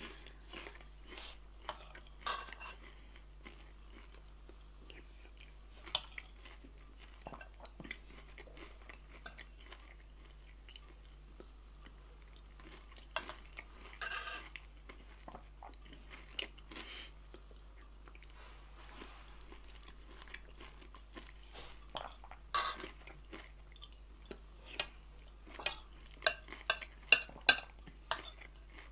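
A person chewing and crunching food close to the microphone, in scattered short crackles, with a quick run of sharper, louder clicks near the end.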